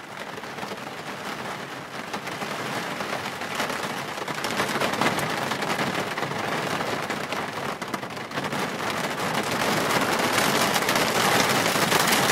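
Steady rain falling, a dense patter of drops that grows gradually louder.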